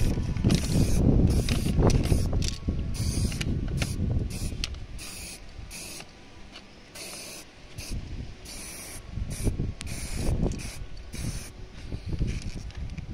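Aerosol can of heat-resistant spray paint hissing in quick short bursts, roughly two a second. A low rumble is loudest in the first two or three seconds.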